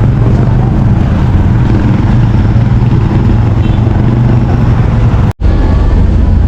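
Steady low rumble of motor vehicle engines, with a hum that holds at one pitch; the sound cuts out for an instant about five seconds in.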